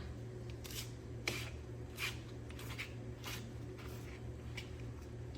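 Kitchen knife chopping mushrooms on a cutting board: about seven separate knife strikes at an uneven pace, over a steady low hum.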